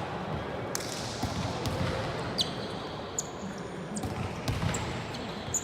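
Volleyball being played in an indoor hall: a few sharp thuds of the ball being struck or hitting the floor, and short high squeaks, over a steady murmur of voices and hall noise.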